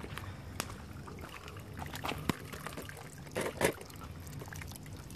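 Water trickling steadily, with a few sharp clicks and a short louder noise about three and a half seconds in.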